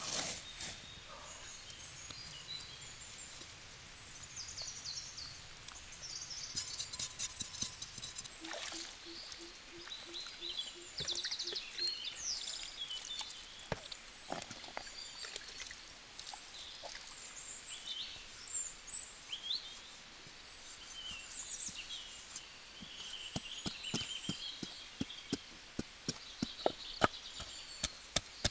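Birds chirping and singing over outdoor ambience, with scattered faint clicks. Near the end, a wooden pestle starts pounding in a wooden mortar, about two strokes a second and getting louder.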